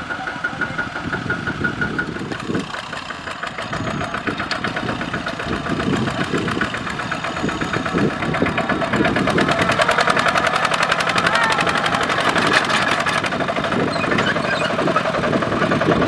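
Single-cylinder Kubota RT140 diesel engine of a two-wheel walking tractor running under load with a rapid, even firing beat as it pulls a heavy straw trailer. It grows louder about halfway through as the tractor comes closer.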